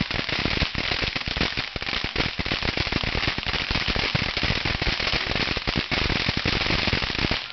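Ground fountain firework spewing sparks: a steady hiss packed with rapid crackling pops, which drops away abruptly near the end.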